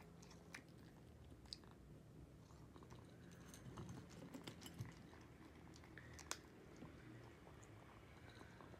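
Faint sounds of an orange Munchkin British Shorthair cat eating quickly from a ceramic bowl: quiet chewing with scattered small clicks.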